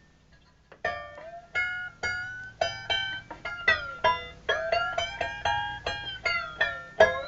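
A tensioned scroll saw blade plucked like a string, about a dozen sharp twanging notes roughly every half second, starting about a second in. Several notes bend in pitch, as the blade's tension changes.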